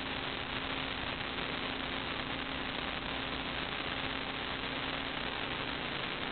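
Steady electronic hiss with a low, steady hum underneath, the background noise of a sewer inspection camera's recording system; nothing else stands out.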